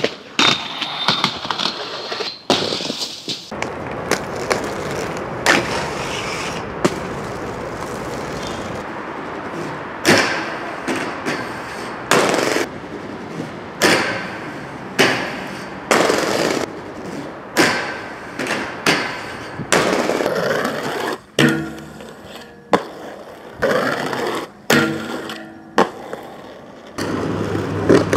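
Aggressive inline skates rolling over pavement, grinding along metal handrails and landing, over a string of short clips. There are a dozen or more sharp clacks and impacts, each followed by a short scraping slide.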